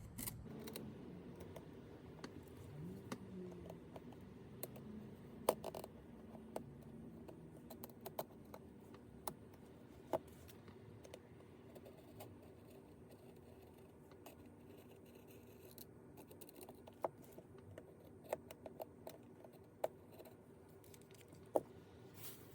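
Thin metal blade scraping and prying under the edge of a cracked Samsung Galaxy A10e screen, cutting through the old adhesive that holds it to the frame: faint scratching with scattered small sharp clicks.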